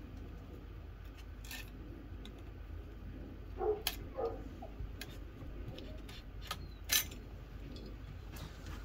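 Faint scattered clicks and light taps of an old floodlight fixture, its wires and mounting hardware being handled as the fixture is taken down from the electrical box. A couple of brief squeaks come about three and a half to four seconds in.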